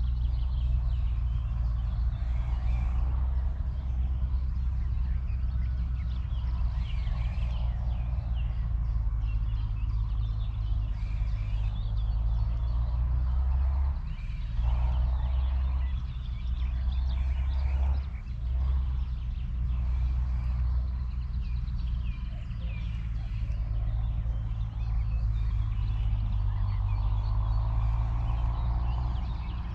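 Wind rumbling on the microphone, easing briefly twice in the middle, with birds singing in the background.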